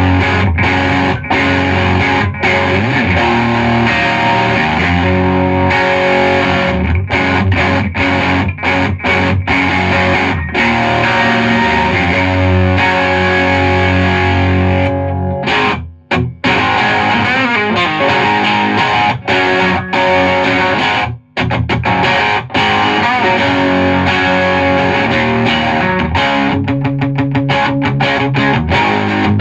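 Electric guitar, a 1964 Fender Jaguar, played with an overdriven tone through a hand-built Modulus Supa Deluxe 20-watt 6L6 amplifier into a Blackface Bassman 2x12 speaker cabinet. The playing breaks off briefly twice around the middle.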